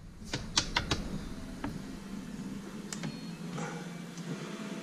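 Sharp clicks and taps of metal parts being handled on the underside of a Sea-Doo 951 two-stroke engine hanging from a hoist. Four clicks come in quick succession about half a second in, and a few scattered ones follow later.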